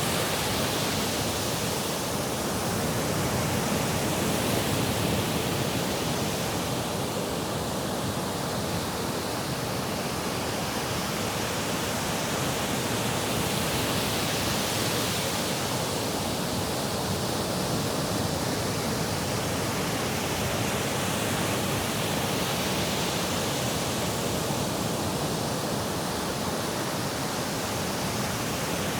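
Sea surf: a steady wash of waves on the shore, swelling and easing every eight seconds or so.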